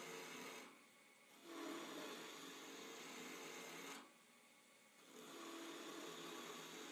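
Turning chisel cutting into spinning wood on a lathe, in separate scraping cuts: one ends under a second in, the next lasts about two and a half seconds, and a third starts about five seconds in, with quieter pauses between where the tool comes off the wood.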